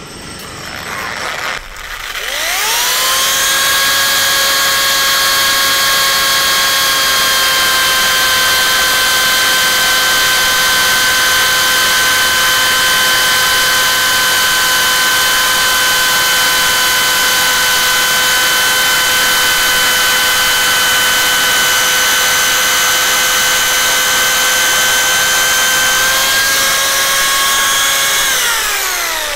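800 W Parkside PSTK 800 C3 jigsaw making a cut. Its motor spins up with a rising whine about two seconds in, runs at a steady pitch through the cut, and winds down near the end.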